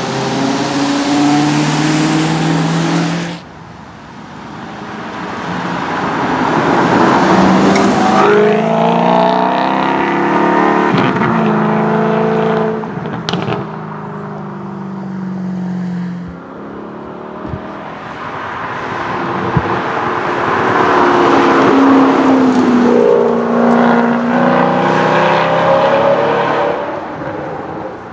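Alfa Romeo 8C Spider's 4.7-litre V8 running hard in several runs, the engine note climbing in steps through the gears, swelling and fading between runs, with one sharp crack from the exhaust about halfway through.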